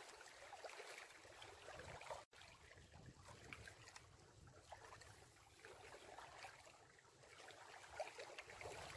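Near silence: faint lapping of small waves against a rocky lakeshore.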